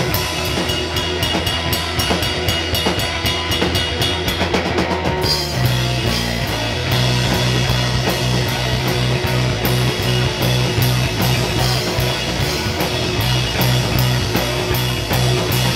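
Instrumental rock played live by electric guitar, electric bass and a Mapex drum kit, loud and steady with a sustained low bass line and cymbal hits. About five seconds in, a quick run of drum hits leads into a new section.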